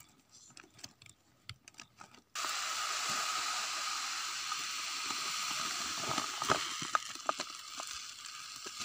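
Small mustard seeds pouring from a plastic seed packet into a woven polypropylene sack: a steady dry hiss that starts suddenly a couple of seconds in, with scattered clicks and crinkles of the bags. Before it, faint clicks of the sack being handled.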